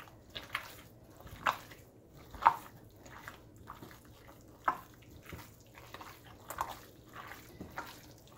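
Gloved hands kneading raw minced beef with melted spiced butter in a glass bowl: irregular wet squishing, the loudest about two and a half seconds in. The butter and spices are being worked through the meat for kitfo.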